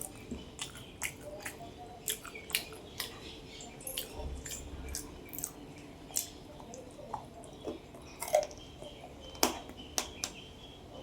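Wet mouth sounds of a person eating: chewing with irregular sharp smacks and clicks, one louder smack near the end.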